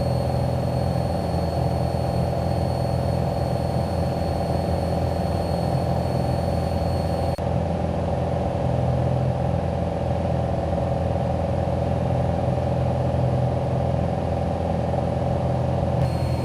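Single-engine piston Cessna's engine and propeller droning steadily, heard inside the cabin. A faint high whine over it drops out a little under halfway through and comes back near the end.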